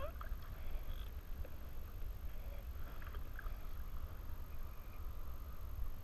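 A low, uneven wind rumble on the action camera's microphone, over faint water sounds around an inflatable kayak on the lake, with a few short faint high chirps.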